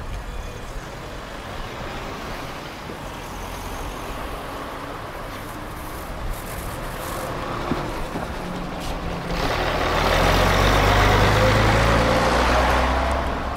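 Bus engine running. It grows much louder about two-thirds of the way through, its pitch rising as it pulls away close by, then fades near the end.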